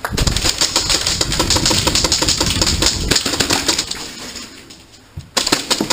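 Airsoft guns firing on full auto: a fast, typewriter-like stream of clicks that starts suddenly, runs for about three seconds and tails off, then another short burst near the end.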